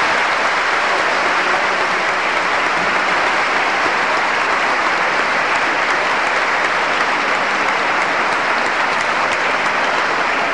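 A crowd applauding, a steady, dense clapping without a break.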